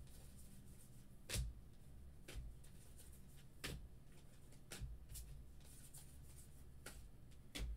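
A stack of Bowman baseball cards being flipped through by hand, one card at a time, with about seven short, sharp card flicks at irregular intervals. Under them is a faint steady low hum.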